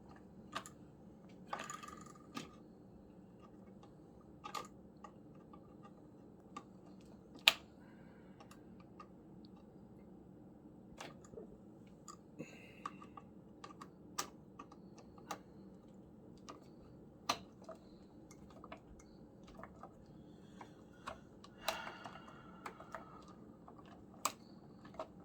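Scattered small clicks and taps of a screwdriver and metal parts while loosening the screws of an old wall toggle switch whose screw slots are clogged with paint. A sharper click comes about seven and a half seconds in, with brief scraping near the start and again toward the end.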